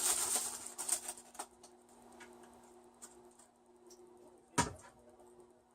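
Sprouts and their plastic bag rustling as they are tipped into a plastic cooker, then a few light clicks and one sharp knock near the end.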